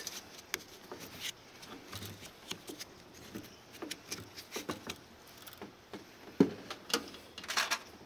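Scattered light clicks and taps of a sheet-metal burner access plate and screwdriver being handled as the plate is fitted and screwed down on a gas water heater, with a few sharper knocks near the end.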